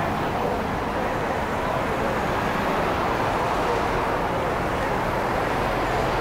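Steady city street noise at a busy intersection: an even wash of traffic rumble and hiss with no single event standing out.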